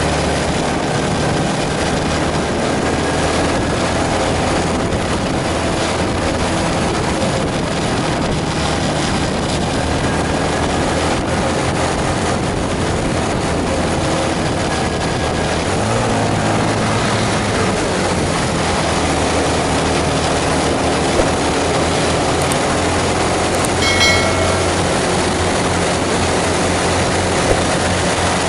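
Steady bus engine and road noise, with a short horn note near the end.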